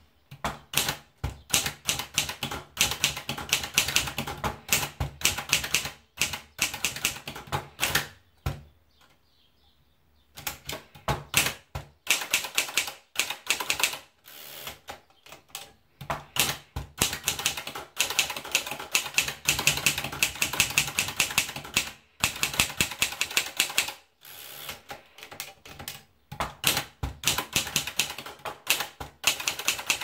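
Deutsche Underwood portable typewriter being typed on: rapid runs of typebars striking the platen, with a pause of about two seconds roughly a third of the way through before the typing resumes.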